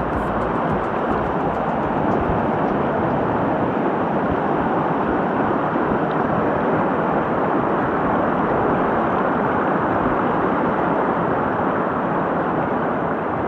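South Fork Hoh River running, a loud, steady rush of water that stays even throughout.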